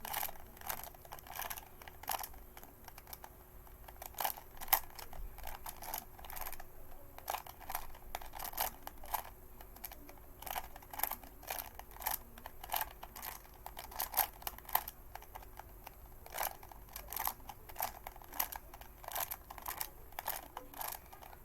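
A plastic puzzle cube being turned fast by hand while it is speed-solved: rapid, irregular plastic clicking and clacking of the layers, coming in quick flurries with short pauses between them.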